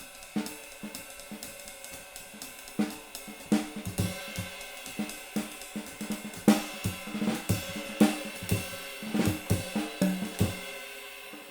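Riveted jazz ride cymbal with two rivets played in a fast up-tempo swing pattern, its sizzle present while each stroke stays clear, with snare and bass drum accents. The kit stops about ten and a half seconds in and the cymbal rings out.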